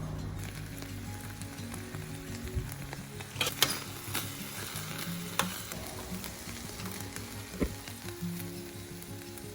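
Food sizzling as it stir-fries in a pan, with several sharp clicks of a utensil knocking against the pan.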